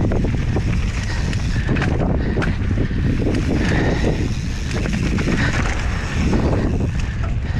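Mountain bike descending a rocky trail at speed: heavy wind buffeting on the microphone with a continuous clatter of tyres, chain and frame over stones.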